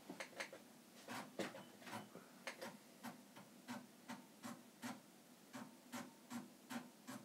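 Faint, light clicking from the Amiga 2000 computer setup, about two clicks a second, irregularly spaced, while Workbench windows are being opened on it.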